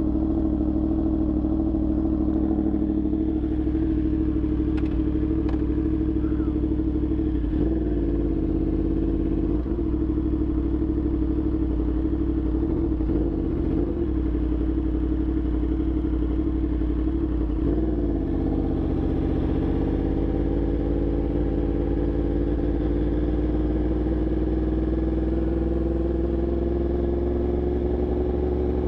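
Motorcycle engine running at a steady speed, its note dipping briefly a few times and then climbing slowly in pitch through the last third.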